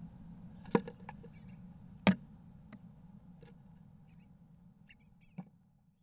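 A bluebird moving inside a wooden nest box: a handful of sharp, irregular knocks and taps of its feet and wings against the wooden floor and walls, the loudest about two seconds in. Under them runs a low steady hum that fades out near the end.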